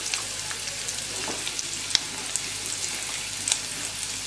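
Chopped onion and garlic sizzling in oil in a non-stick pan over medium-low heat, stirred with a silicone spatula. A steady hiss with scattered small crackles.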